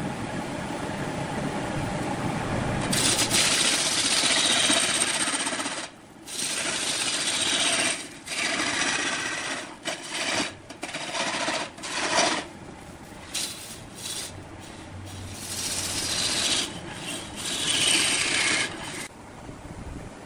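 A large wood lathe turning a big red hardwood blank while a long hand-held turning tool cuts it: a hissing scrape that starts about three seconds in and comes and goes as the tool is pressed in and eased off, with short breaks between cuts.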